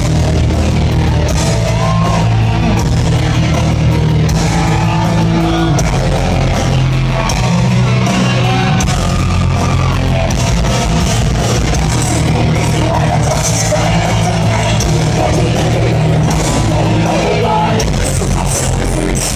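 A rock band playing live at full volume, heard from the crowd: distorted guitars, bass and drums with a singer's voice over them.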